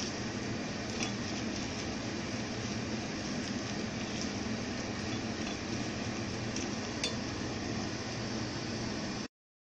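Onions and carrots sizzling as they fry with tomato paste in a steel pot, stirred with a plastic spoon that clicks against the pot now and then. The sound cuts off abruptly near the end.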